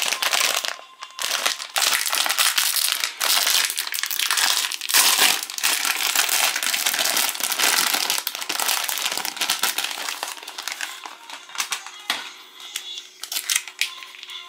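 Metallized plastic wrapper of a Chipicao croissant crinkling and crackling as hands pull it open and handle it. The crinkling is dense for about the first ten seconds, then thins to scattered crackles.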